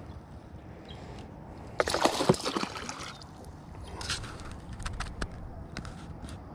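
Hooked largemouth bass thrashing at the surface beside the boat: a burst of splashing about two seconds in that lasts about a second, and a shorter splash around four seconds. A few sharp clicks follow near the end.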